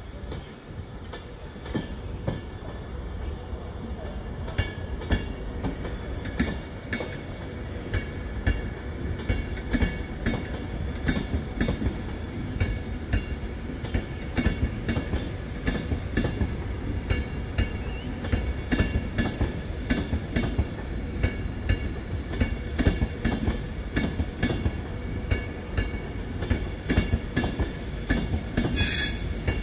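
Train wheels running over rail joints and points: a dense series of clicks over a steady low rumble, growing louder over the first few seconds, with a brief high-pitched burst near the end.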